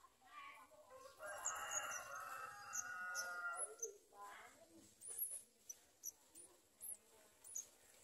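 A long drawn-out bird call lasting about two and a half seconds, followed by a string of short, thin, high chirps.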